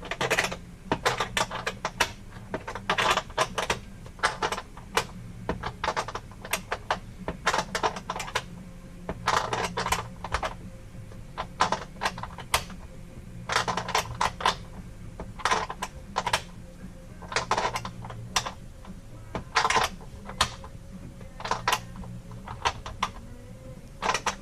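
A ratchet wrench clicking in short runs, again and again, as nuts are tightened down by hand, over a steady low hum.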